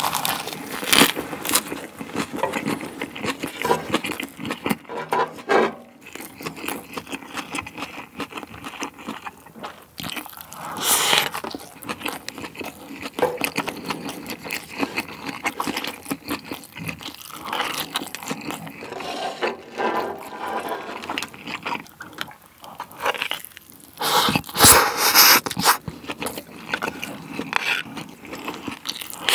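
Close-miked eating sounds: chewing and crunching on a lettuce wrap and fried rice, and a wooden spoon scraping fried rice across a metal griddle tray. The sounds come irregularly, with louder bursts about eleven seconds in and near the end.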